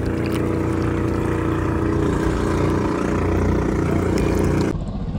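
Small boat engine running steadily at an even pitch. Near the end the sound drops abruptly to a quieter, duller hum.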